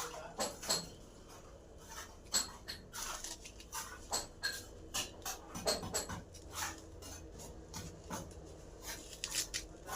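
Irregular light clicks, knocks and clinks of plumbing work, with pipe fittings and tools being handled and set down.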